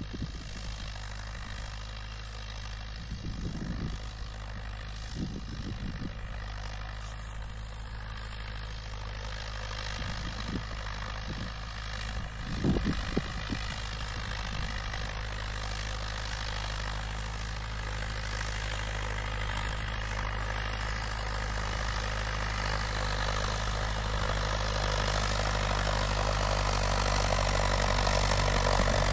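Massey Ferguson 3095 tractor's diesel engine running steadily under load as it pulls a four-furrow plough, growing louder as the tractor comes closer. A few brief low bumps sound in the first half, the loudest about halfway through.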